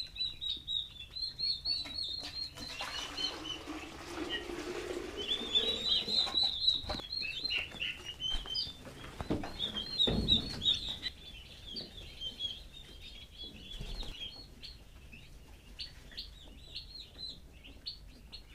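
Turkey poults peeping: many short, high chirps overlapping throughout, with a dull knock about ten seconds in.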